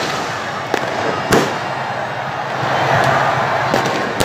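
Firecrackers bursting over a loud, continuous stadium crowd din. There are four sharp bangs, the loudest about a second and a half in.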